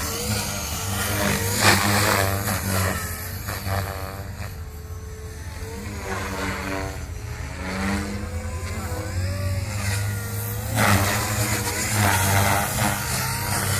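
Gaui X3 electric RC helicopter in flight: the rotor and motor whine glides up and down in pitch as it manoeuvres. It dips in level mid-way and grows louder near the end.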